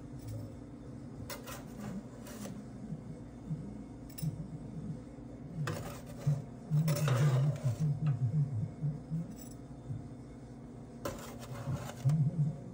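Kitchen clatter: scattered clinks and scrapes of metal utensils and dishes as freshly baked cookies are moved to cool, with a busier stretch about halfway through and another near the end.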